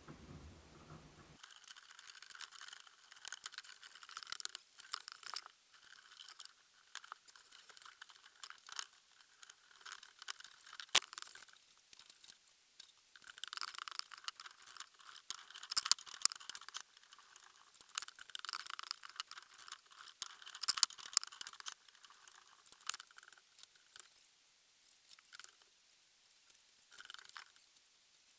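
Irregular crunching and clicking with short scraping bursts and a few sharper clicks.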